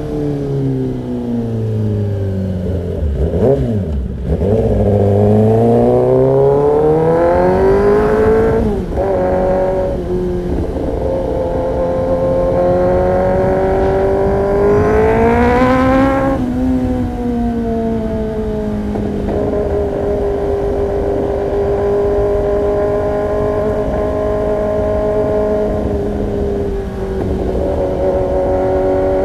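Kawasaki ZX-10R's inline-four engine through an Arrow Pro-Race exhaust. The revs fall for the first few seconds, then climb twice, each climb ending in a sudden drop about nine and sixteen seconds in, like gear changes. For the last third the engine holds a steady pitch.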